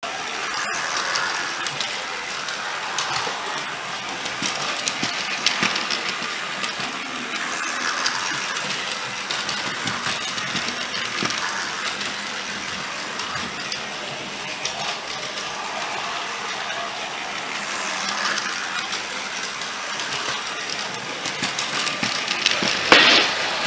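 Battery-operated Rail King toy trains running on plastic track, their small motors whirring and wheels rattling steadily over the rails, with a brief louder clatter near the end.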